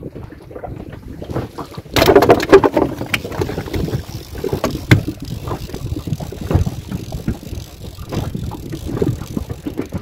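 Handling knocks and rustling on an inflatable fishing boat, with wind on the microphone. A loud crackling burst comes about two seconds in, then irregular knocks.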